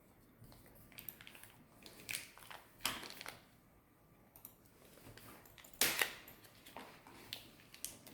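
Scattered clicks and rustles of a charger's packaging and cable being handled, with a sharper knock or rustle about three seconds in and another about six seconds in.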